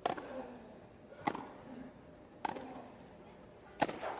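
Tennis ball struck by rackets in a rally: four sharp hits, about a second and a third apart.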